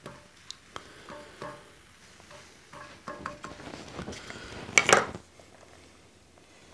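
Soft knocks and scrapes of a wooden spatula against a cast iron skillet, then one louder, sharper clatter of kitchenware about five seconds in.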